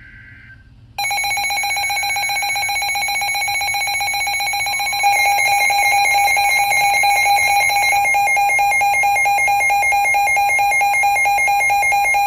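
Midland NOAA weather alert radios sounding their alert alarms for a severe thunderstorm warning: a loud, shrill electronic alarm tone starts about a second in, after the tail of a short coded data burst, and a second, louder alarm layer joins about four seconds later.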